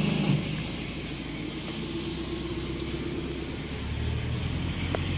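Diesel car engine running, heard from inside the cabin as the car is driven: a steady low hum that grows a little louder about halfway through.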